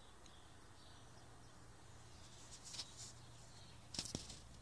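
Near silence: faint background hiss with a steady low hum, broken by a few soft clicks, the loudest about four seconds in.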